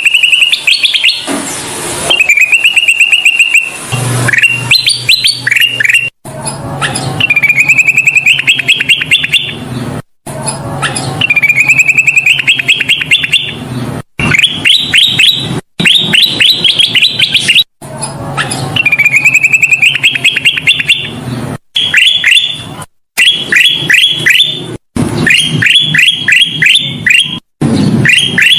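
Kutilang emas singing loudly: runs of quick chirps, each phrase climbing in pitch, repeated over and over with abrupt short breaks between phrases. A faint low hum runs underneath.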